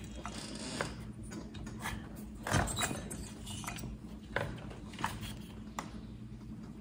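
A handful of light clicks and knocks from hands handling the metal cylinder and parts of a partly stripped Husqvarna 372 XP chainsaw engine, the loudest about two and a half seconds in, over a steady low hum.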